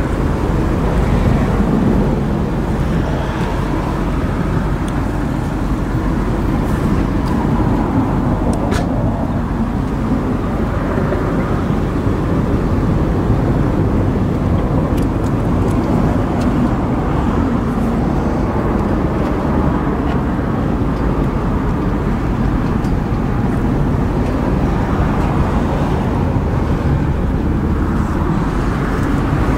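2005 BMW 745Li's V8 running, heard as a steady, even rushing noise with no rise or fall in pitch.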